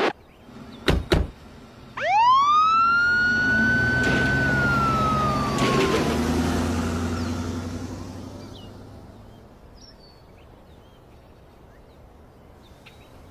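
Ambulance siren giving a single wail: it sweeps up quickly about two seconds in, holds high, then slowly drops in pitch and fades away as the ambulance drives off, over a low engine rumble. Two short knocks come just before the siren starts.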